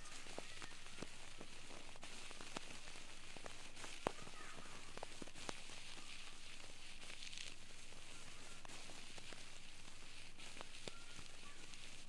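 Ear pick working inside an ear canal: soft scattered crackles and clicks over a steady hiss, with one sharper click about four seconds in.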